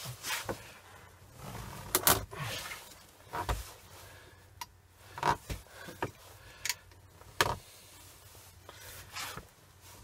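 A knife scoring lengthwise along the plastic outer sheath of steel-armoured cable: irregular scraping, with sharp knocks and clicks as the cable and blade are worked about.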